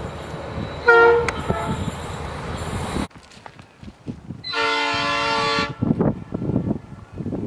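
Train horns: a short horn toot about a second in over the steady rumble of the train, then, after a sudden cut, a horn chord of several tones held for about a second, followed by train rumble.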